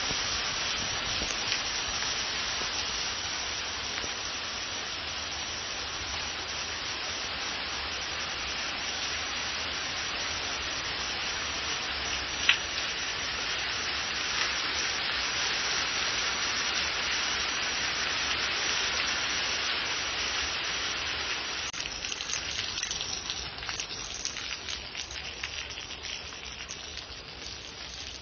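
Heavy rain falling on stone patio paving, a dense, steady hiss. In the last several seconds the hiss thins and separate drops are heard spattering on the slabs. A single sharp tap about twelve seconds in is the loudest moment.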